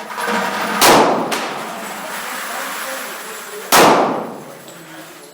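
Two pistol shots from a Smith & Wesson SW40VE (.40 S&W), about three seconds apart, each a sharp crack with a long echoing tail.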